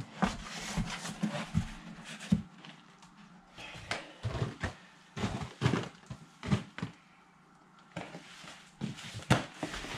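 Moist worm bedding sliding out of a tipped plastic tub into a fabric worm bag, then a hand spreading it. Irregular soft knocks and rustles, with a quieter pause about seven seconds in.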